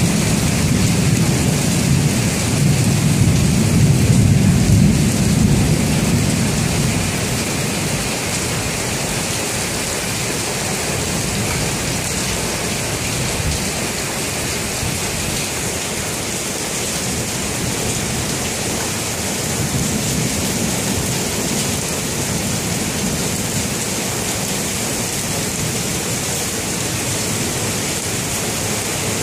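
Heavy rain falling steadily in a thunderstorm, with a low roll of thunder in the first several seconds that fades away.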